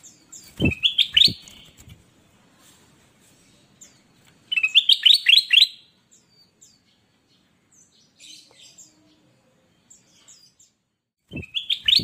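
Ruby-throated bulbul (kutilang emas) singing three short, loud phrases of quick rising whistled notes: about a second in, at about five seconds, and near the end. Fainter chirps come between the phrases, and a few low thumps come with the first and last phrases.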